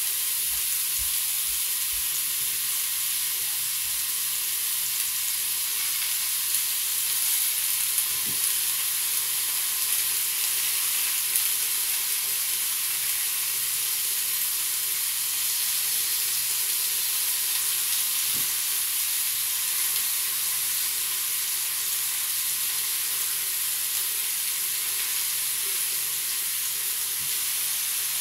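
Bacon wrapped around a chicken breast sizzling in a hot waffle iron: a steady frying hiss with a few faint pops.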